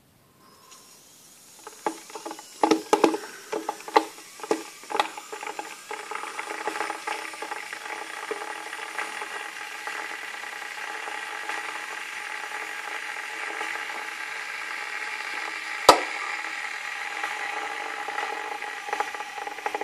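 Breville electric kettle heating water after being switched on. For the first few seconds it gives irregular loud ticks and pops, then a steady rushing hiss with a faint whine that slowly builds as the water nears the boil. A single sharp click sounds about three-quarters of the way through.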